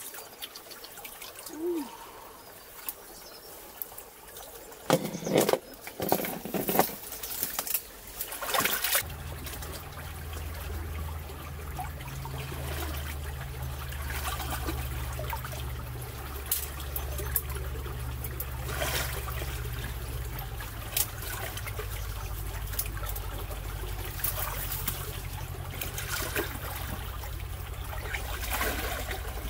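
Shallow stream water splashing and trickling as a person wades and feels through it by hand. There is a cluster of louder splashes about five to nine seconds in. After that a steady low rumble runs under scattered smaller splashes.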